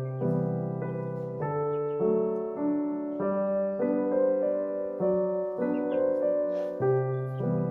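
Slow, gentle piano background music: sustained chords that change about once a second.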